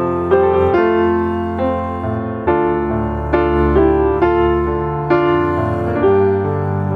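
Background music: slow, gentle piano with a new note or chord struck roughly every second and left to ring.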